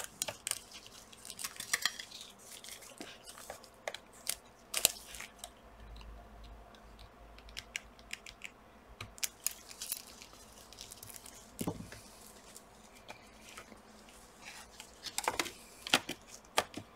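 Quiet, scattered small clicks and rustles of gloved hands plugging a laptop's display cable back into its connector and handling the screen panel.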